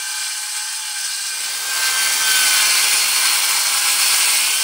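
DeWalt circular saw cutting through a wooden board: the blade's whine over the rasp of the cut, getting louder about halfway through.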